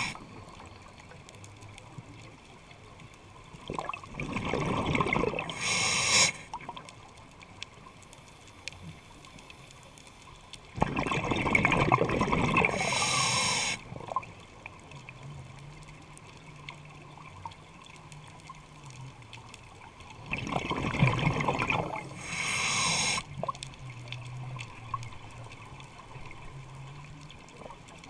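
Scuba diver breathing through a regulator underwater: three breaths about eight seconds apart, each a rush of bubbles that ends in a short, brighter hiss. A faint low hum sounds between the breaths.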